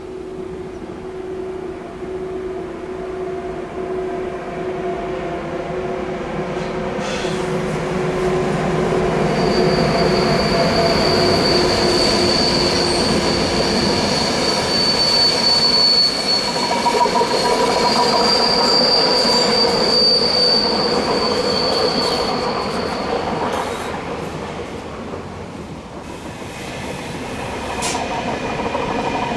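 Train rolling through a curve with its wheels squealing on the rails. A lower squeal holds through the first half, then a high-pitched squeal starts about ten seconds in and lasts some thirteen seconds. The rolling noise grows loudest mid-way, dips and rises again near the end.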